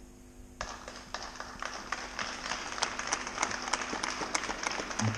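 Audience applauding: clapping breaks out suddenly about half a second in and grows, with single claps standing out from the patter.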